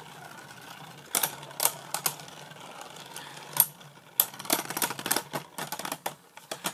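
Two Beyblade Burst spinning tops, Drain Fafnir and a hand-spun Beyblade, whirring on a plastic stadium floor and clacking against each other. The hits are sparse at first, then come in a rapid flurry from about four seconds in as the tops collide and wobble.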